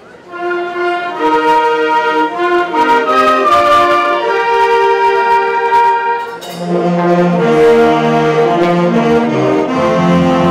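Symphonic wind band of woodwinds and brass begins playing about half a second in, with a melody over held notes. About six seconds in, lower instruments enter beneath a fuller chord.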